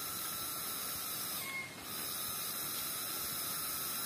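An unidentified animal calling from the rainforest: a steady hissing buzz with a pitched tone running through it. It dips once, about one and a half seconds in, with a short high whistle, then resumes.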